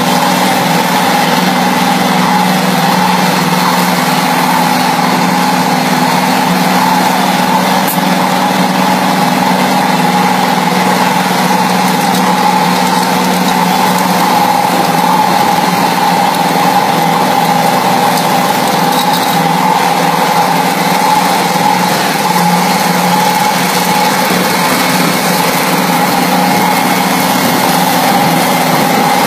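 Scania truck's diesel engine running loud and steady, holding one speed with no change. It is the runaway engine ('motor disparado') racing out of control on its own.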